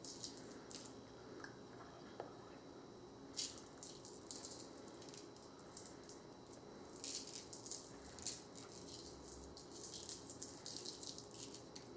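Epsom salt crystals being pinched from small cups and sprinkled by hand onto wet watercolor paper: faint, crisp ticks that come in brief clusters a few seconds apart.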